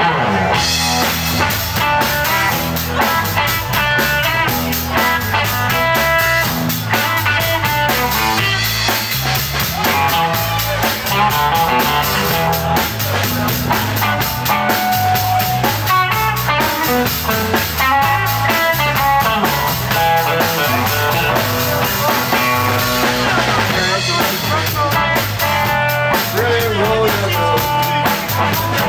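Live electric blues band playing an instrumental passage with electric guitars and a drum kit keeping a steady beat, a harmonica joining near the end.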